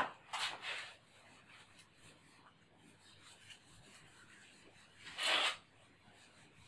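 Whiteboard eraser being rubbed across a whiteboard to wipe it clean. There are a few quick strokes at the start, softer wiping after them, and one stronger stroke about five seconds in.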